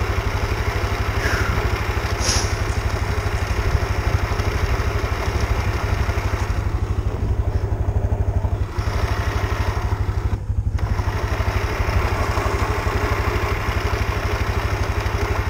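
Yamaha Kodiak 450 ATV's single-cylinder engine idling steadily while the quad stands still.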